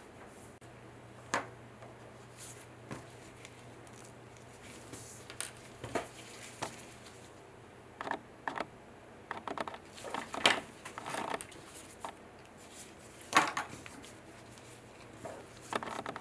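Handling noise: thin plastic gloves crinkling, with scattered light clicks and taps as a small polishing block and a tube of polishing compound are handled against a 3D-printed resin diamond. The sounds are irregular, and a few sharper clicks come near the middle.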